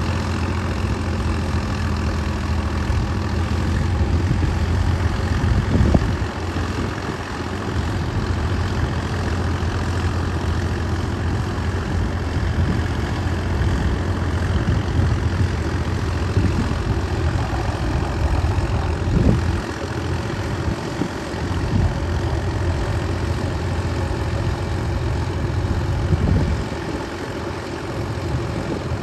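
Tractor engine running steadily with a low hum, with a few brief knocks along the way.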